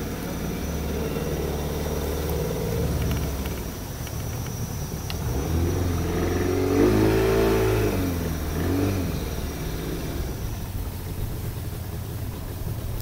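A canoe's motor running steadily, its pitch rising and falling between about six and nine seconds in as the revs change.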